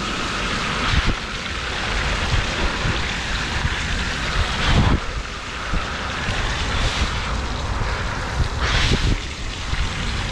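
Recumbent trike's wheels rolling through shallow floodwater: a steady rush of spray and splashing, with wind buffeting the microphone. Brief louder splashes come about a second in, midway through and near the end.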